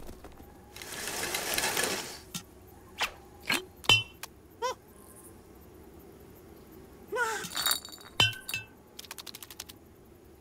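Cartoon sound effects: a brief whoosh, scattered light clinks and taps with a short ringing, a few short rising squeaks, and a quick run of light ticks near the end.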